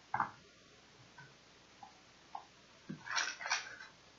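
Small craft supplies being handled: a sharp click, a few light taps, then a short clatter about three seconds in, as paint bottles are picked out.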